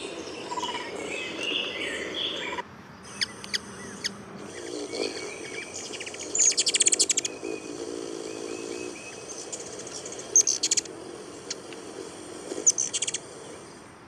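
Hummingbird chatter: short bursts of rapid, high clicking chips, heard several times. Other birdsong sounds near the start.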